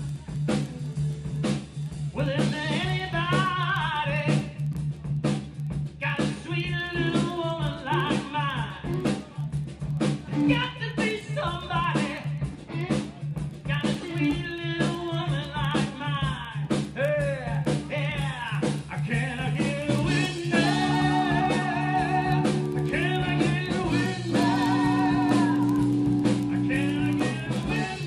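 Band playing blues-rock: guitar over a steady bass line, with a vocal melody, settling into held notes in the last third.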